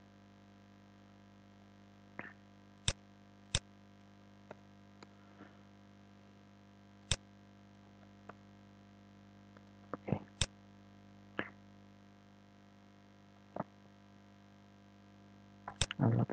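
Scattered sharp clicks of a computer keyboard and mouse, a dozen or so spread out, with a quick flurry of clicks near the end. Under them runs a steady low electrical hum.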